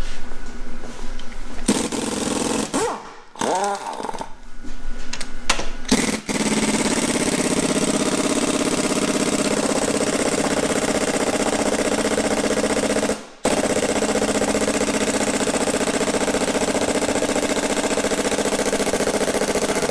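Pneumatic impact wrench hammering on the cylinder-head bolts of a Volvo T6 straight-six engine. It runs in short stop-start bursts for the first few seconds, then goes on hammering with only one brief stop about two-thirds of the way through.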